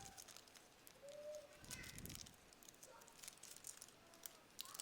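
Near silence with faint, short bird calls in the background and a few light clicks.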